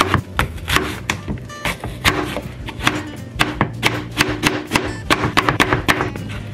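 Kitchen knife slicing and chopping an apple, the blade knocking sharply on the hard cutting surface in a quick, irregular series, about three or four cuts a second. Background music plays underneath.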